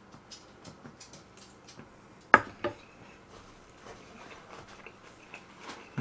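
Chewing and wet mouth sounds from a large mouthful of fried rice: a string of faint small clicks, with two sharp louder clicks about two and a half seconds in.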